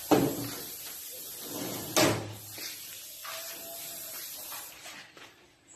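Two loud, sharp knocks about two seconds apart, like a door or a piece of wood being banged, over low background noise.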